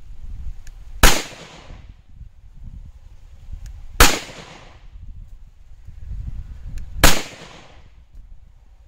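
A 5.7x28mm pistol fired three times at a steady pace, about three seconds apart, each shot a sharp crack with a short fading tail.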